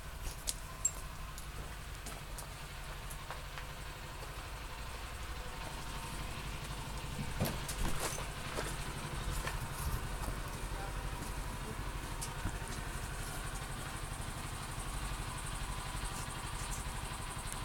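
Steady low rumble of outdoor background noise with faint hums and scattered light clicks and taps, a few louder ones bunched around the middle.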